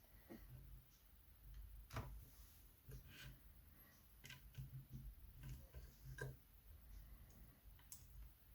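Near silence with a scattering of faint, separate small clicks and taps, the sharpest about two seconds in, from a lock cylinder and small tools being handled.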